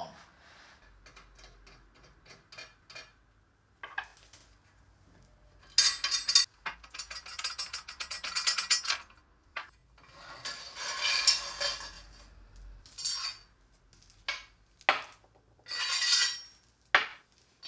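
Metal parts of a table saw's rip fence and its grooved aluminium extension being handled: a few faint clicks, then several bursts of clinking, rattling and scraping, with a few single knocks between them.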